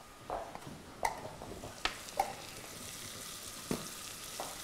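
Chopped vegetables (spring onion, zucchini, carrot, pepper) sizzling in butter and olive oil in a pot as they are lightly sautéed to soften, stirred with a spoon that knocks against the pot several times.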